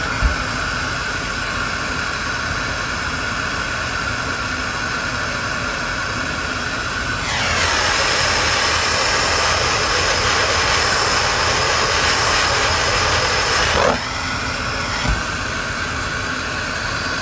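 Butane micro torch flame hissing steadily as it heats heat-shrink tubing over a cable splice, louder for about six seconds in the middle.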